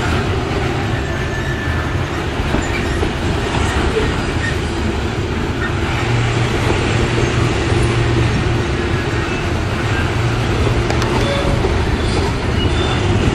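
Loaded coal gondolas of a freight train rolling past: a steady heavy rumble of steel wheels on rail, with faint wheel squeal coming and going.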